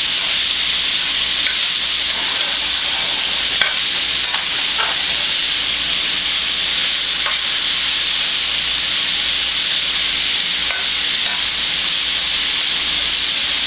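Smoked sausage and drained sauerkraut sizzling steadily in olive oil in a hot metal frying pan, stirred with a metal spatula that clicks and scrapes against the pan now and then.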